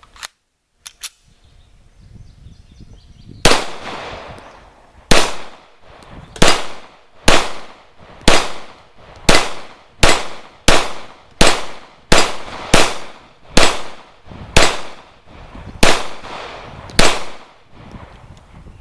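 Zastava EZ9 9mm pistol fired about fifteen times in a steady string, roughly one shot a second, beginning a few seconds in.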